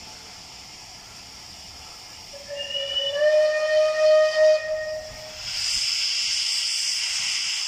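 Steam whistle of Bulleid Battle of Britain class locomotive 34081, blown once for about two and a half seconds: a single loud note that slides up slightly as it starts. About five and a half seconds in, a steady loud hiss of steam begins as the cylinder drain cocks are opened.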